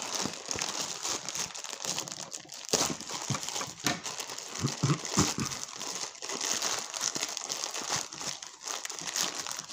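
Thin plastic courier mailer bag crinkling and rustling as hands pull and tear it open, with a few sharp crackles.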